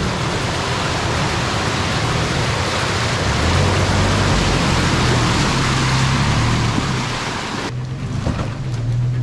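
Loud steady rushing noise over a low hum; the rushing cuts off suddenly near the end, leaving the hum.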